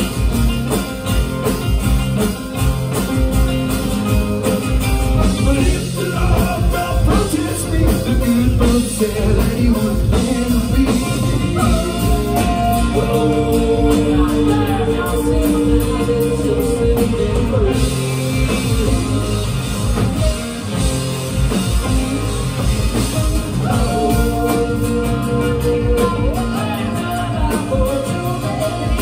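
Rock band playing live: a lead vocal sung over acoustic and electric guitars and drums, heard from within the audience.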